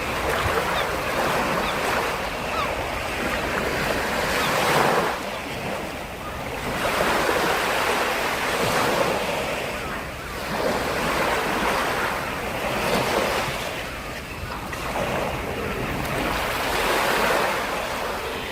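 Sea waves washing in, the surf swelling and fading in a slow rhythm, one wave every three to four seconds.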